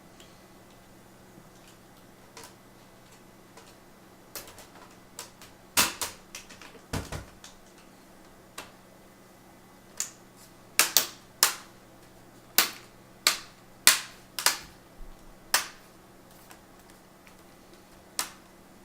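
Plastic screen bezel of a Toshiba Satellite C655d laptop being pressed back onto the lid, its clips snapping into place in a string of sharp clicks. The clicks are scattered and irregular, and come thickest in the second half.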